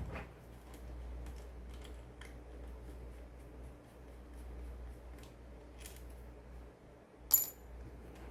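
Small, faint plastic and metal clicks from Cherry keyboard stabilizer parts being handled and taken apart, with one sharp click and a brief metallic ring about seven seconds in.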